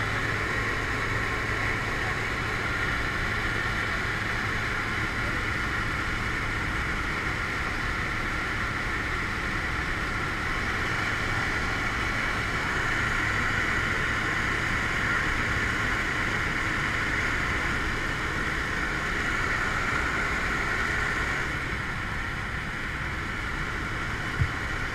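Steady drone of a small jump plane's engine and propeller with airflow noise, heard from inside the cabin in flight; it eases slightly in level near the end.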